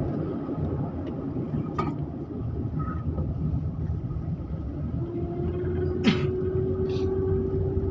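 Car driving along a road: a steady low engine and road rumble. A few sharp clicks come through, the loudest about six seconds in, and a steady whine joins about five seconds in.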